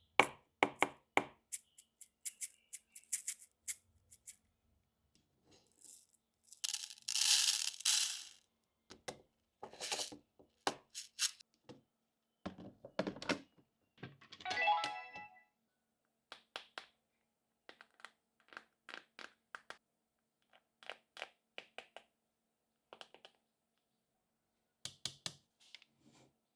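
Small plastic toy kitchen pieces being unpacked and handled: a run of light clicks and taps, with a longer crinkling rustle of packaging about seven seconds in and a short squeaky tone around the middle.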